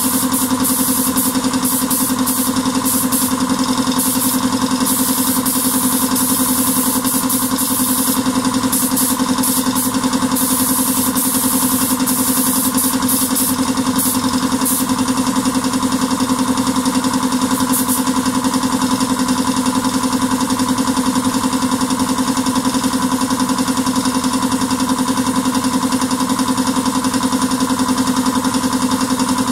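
A steady machine drone from the paint booth's equipment runs throughout. Over it come short bursts of compressed-air hiss from a gravity-feed spray gun laying on clear coat, mostly in the first half; they stop after about fifteen seconds.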